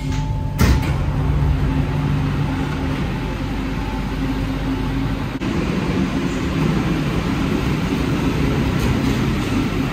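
Interior of a rubber-tyred Alstom NS-93 metro car running between stations: a steady rumble of the running gear with a low hum from the traction equipment. A single sharp knock comes about half a second in.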